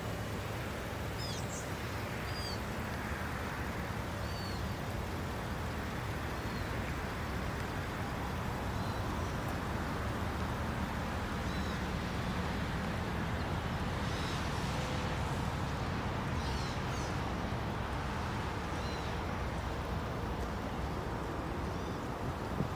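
Chevrolet Suburban's V8 engine idling steadily, a low hum, with birds chirping now and then, most of them around the middle.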